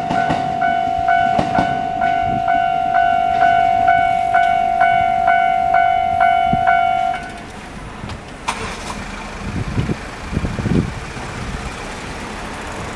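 Japanese level-crossing electronic warning bell (the standard tone) ringing loudly in even strokes about twice a second, then stopping abruptly about seven seconds in. Low knocks from a passing train's wheels come in the first couple of seconds, and a sharp clack and a few low thumps follow after the bell falls silent.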